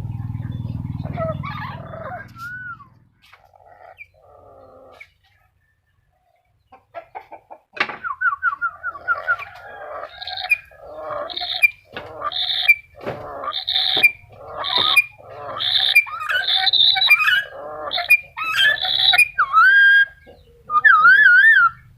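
Black-capped lory calling: a low rumble in the first couple of seconds, then from about eight seconds in a rapid run of loud, harsh squawks and chattering calls. Near the end come a few clear, wavering whistled notes.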